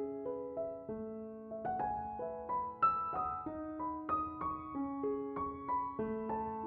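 Background piano music: a gentle melody of single notes struck one after another, each ringing on over held lower notes.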